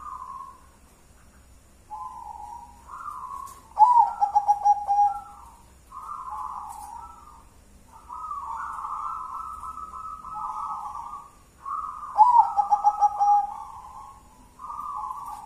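Zebra dove (perkutut) singing: two song phrases, each with a loud, rapid stutter of short cooing notes (about four seconds in and again about twelve seconds in) followed by longer, softer drawn-out coos.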